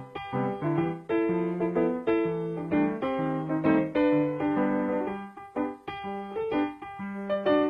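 Piano music: a keyboard melody of struck, sustained notes over lower chords.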